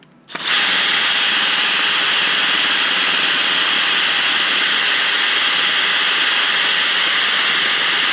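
DeWalt cordless drill boring a hole through an aluminum dirt-bike rim, starting about half a second in and running at a steady, constant speed with a high whine.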